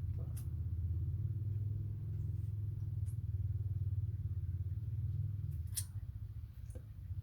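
Steady low hum, with two sharp clicks, one about half a second in and one near six seconds.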